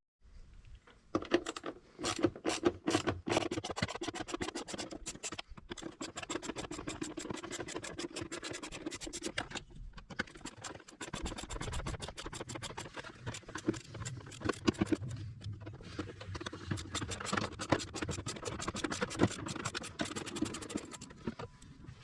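Hand ratchet with a 7 mm socket clicking in long rapid runs as the air box screws are undone, with short pauses between runs.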